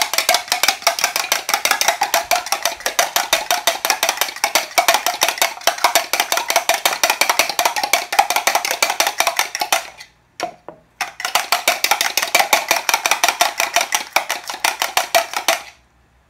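An egg and a little water being beaten in a glass measuring cup: rapid, even clicking of the utensil against the glass. It pauses briefly about ten seconds in, then goes on until it stops shortly before the end.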